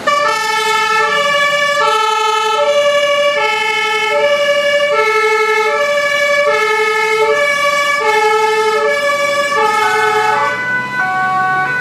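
Dutch fire engine's two-tone siren sounding, two pitches alternating evenly about every three-quarters of a second. Near the end the alternation breaks off into shorter, different tones as the truck's engine comes up underneath.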